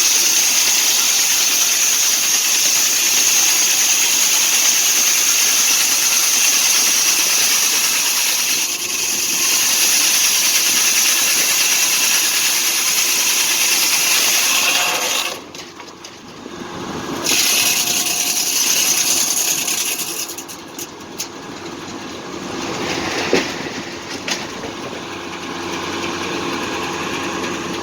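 Foley Belsaw circular sawmill running, its blade cutting through a log with a loud, steady hissing whine. About halfway through, the sawing sound drops off sharply, and the mill runs on more quietly, with a few knocks.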